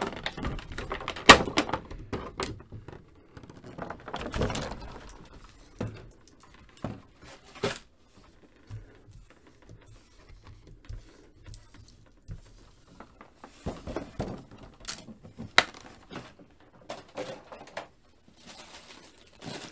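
Clear plastic blister tray crinkling and crackling as it is handled for the first few seconds, then scattered light clicks and taps as the plastic action figures are set down and moved on a tabletop.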